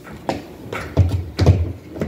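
Four dull knocks and thumps from handling the door sweep against the bottom of a door, the second pair loudest.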